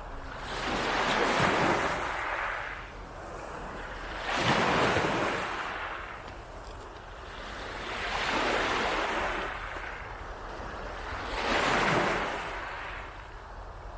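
Waves breaking and washing up a beach, each one swelling in and fading away, four times, roughly every three to four seconds.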